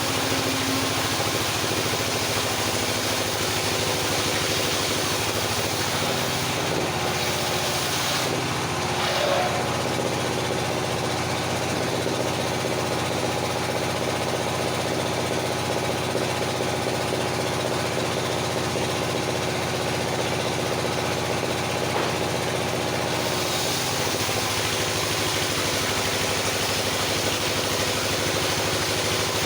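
Engine-driven circular sawmill running steadily, with a steady motor note; its sound changes from about 8 to 23 seconds in.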